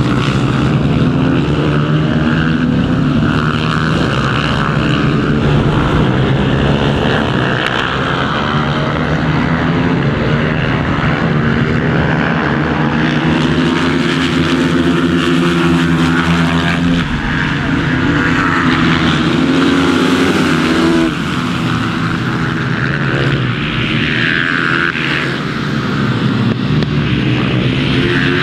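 Several supermoto racing motorcycles passing at race pace, their engines revving up and down through the gears. The pitch climbs and drops repeatedly as the bikes accelerate out of corners and brake into them.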